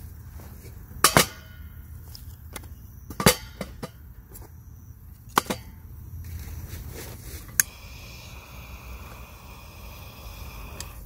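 Sticks of wooden kindling laid into a stainless steel wood stove, knocking sharply against the metal four times, about two seconds apart. In the last few seconds a steady hiss runs as the kindling is lit.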